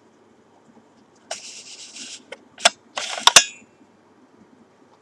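A plastic View-Master stereo viewer's advance lever being worked twice: each time a short scraping slide and then sharp clicks as the reel turns to the next picture.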